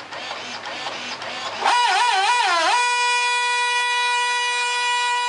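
Model speed boat's electric drive motor spinning its exposed propeller in the air: a loud whine that starts suddenly, wavers down and up three times as the throttle is worked, then holds one steady pitch and falls away as it stops at the very end. Before it starts, a fainter rough whirring.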